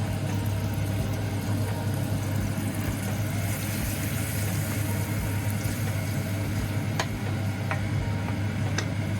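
Steady low mechanical hum with a hiss over it while a creamy pasta sauce cooks in a pan on the stove; a few light clicks near the end.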